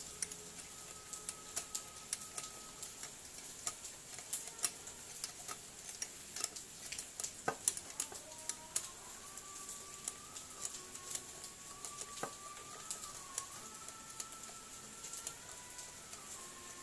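Light, irregular metallic clicks and taps of bolts being turned by hand and parts handled on the aluminium crankcase of a small four-stroke generator engine.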